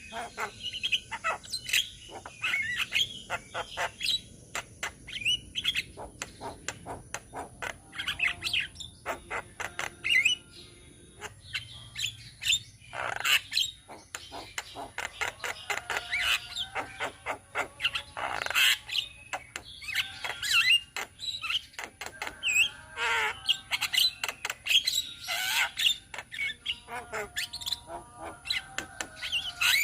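Several Javan mynas (jalak kebo) calling together in a dense, continuous chatter of rapid clicks, whistles and harsh squawky notes.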